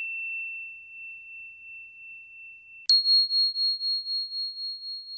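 Two struck chime tones of a bell sound effect: the first rings on and fades, and about three seconds in a second, higher chime strikes sharply and rings out with a wavering, pulsing decay.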